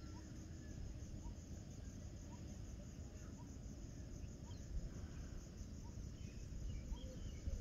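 Dusk cricket chorus: a steady, high-pitched pulsing trill. A faint short chirp repeats about once a second, over a low rumble.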